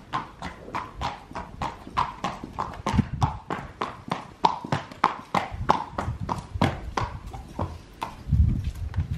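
Hooves of a Welsh D (Welsh Cob) horse clip-clopping at a walk on concrete, about three hoofbeats a second, with a heavier dull thud near the end.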